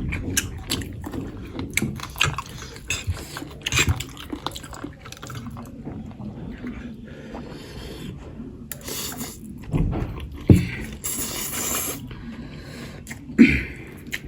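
Close-up eating sounds: chewing food, with scattered clicks and scrapes of cutlery against a plate and a few soft knocks.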